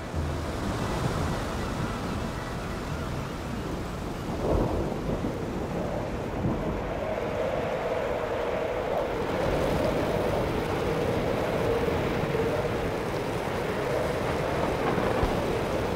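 Thunderstorm sound effects: a steady hiss of rain with a rumble of thunder about four and a half seconds in. From about six seconds on, a droning, wavering tone joins it.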